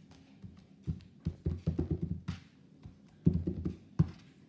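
Fingers squishing and pressing a jiggly slime on a wooden table: runs of short sticky pops and soft knocks, in two bunches about a second in and again after three seconds.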